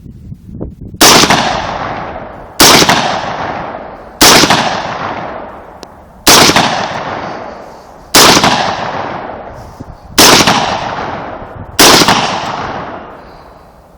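AR-15 rifle firing seven single shots, one every second and a half to two seconds, each very loud crack followed by a long rolling echo that dies away.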